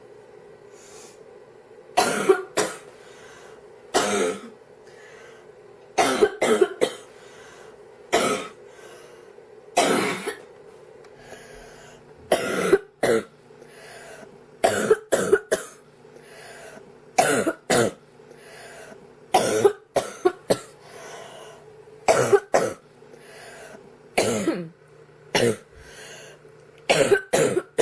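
A girl coughing again and again, short single and double coughs about every two seconds: a persistent chesty cough from a cold.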